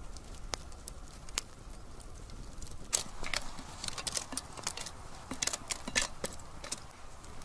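Wood campfire crackling, with irregular sharp pops and snaps that come thicker and louder from about three seconds in.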